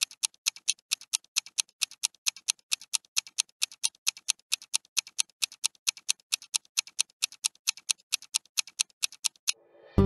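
Clock-ticking countdown sound effect: fast, even ticks at about four a second. It stops about half a second before the end, and music comes in.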